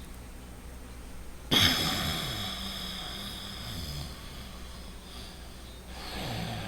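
A man breathing loudly through his nose: a sudden forceful breath about a second and a half in that tails off over the next couple of seconds, and a second, softer breath starting near the end.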